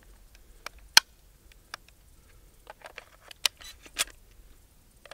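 12-gauge buckshot shells being loaded into the tube magazine of a High Standard 10B bullpup shotgun: scattered metallic clicks and clacks, the sharpest about a second in and a few more near the end.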